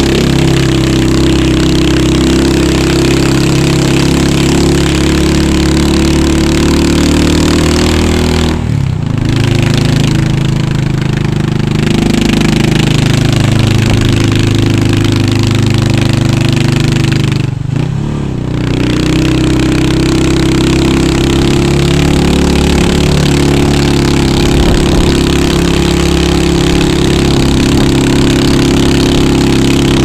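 Large motorcycle engine running while riding, with steady wind rush over the microphone; the engine note eases off briefly twice, about nine and eighteen seconds in, then picks up again.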